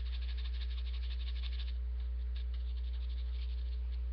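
A steady low hum that runs without change, with a fast, fine ticking buzz higher up that fades out about a second and a half in.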